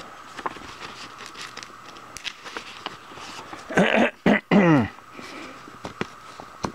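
Light clicks and taps of small metal parts being handled: a drill bit sharpener's chuck and collet. About four seconds in, a man gives a short grunt in three quick parts, each falling in pitch.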